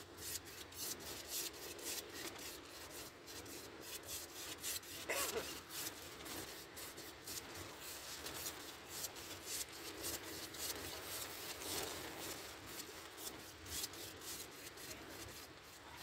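Palette knife scraping and smearing paint across a painted board: a quick run of rough rubbing strokes, one a little stronger about five seconds in.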